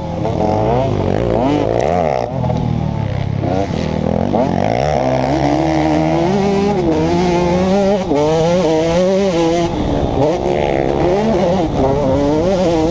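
2011 KTM 150 XC's two-stroke single-cylinder engine, heard from on the bike, revving up and easing off again and again under riding, its pitch rising and falling with throttle and gear changes and dropping sharply twice in the first few seconds.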